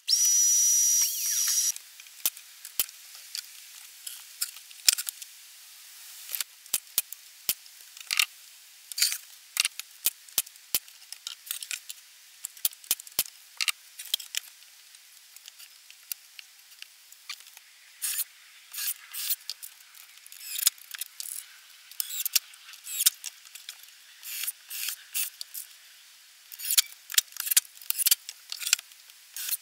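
DeWalt mitre saw cutting a wooden strip to length: a short loud burst with a steady high whine that stops after about two seconds. Then many light clicks and knocks of wooden strips being handled and fitted together.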